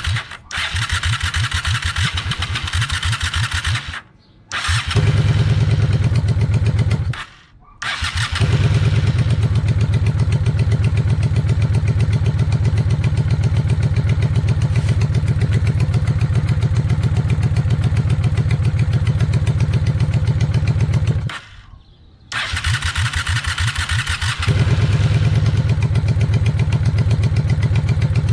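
Honda VLX 600 V-twin motorcycle engine turned over on the electric starter for about four seconds, then running and cutting out several times: it runs briefly, stops, runs steadily for about thirteen seconds, dies, is cranked again and catches near the end. The stalling comes while the carburettor idle screw is being adjusted for a better idle.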